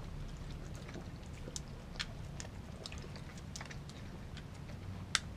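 Dog eating raw food from a glass bowl: scattered wet clicks of licking and chewing, with sharper clicks about two seconds in and near the end.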